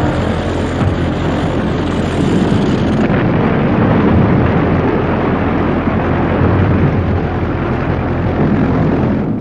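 Drone of a First World War biplane's engine in flight, steady and loud with a rush of air. It cuts off suddenly at the very end.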